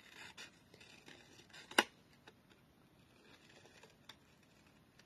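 Small scissors snipping through cardstock around a stamped image: a series of short, light snips with one louder, sharp click a little under two seconds in.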